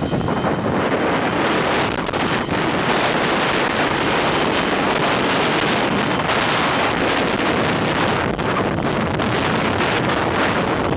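Wind buffeting the microphone over the steady jet-engine noise of a taxiing Boeing 737-200.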